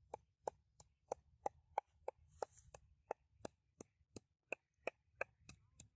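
Wooden pestle pounding red chilies in a mortar: steady, even knocks, about three a second.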